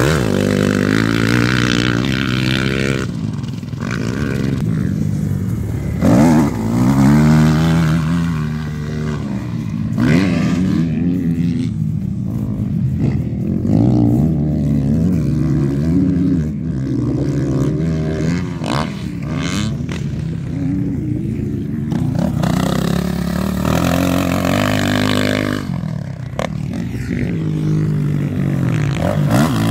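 Motocross dirt bike engines revving hard, the pitch climbing and dropping over and over as the riders open the throttle, shift and back off around the track. Several bikes are heard, growing louder and fading as they pass.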